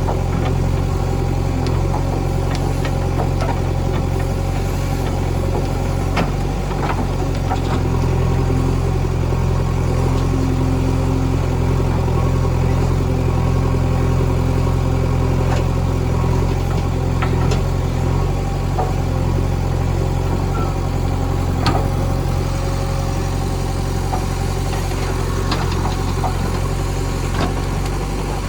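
JCB backhoe loader's diesel engine running steadily, with scattered clicks and knocks and one sharper knock a little past two-thirds of the way through.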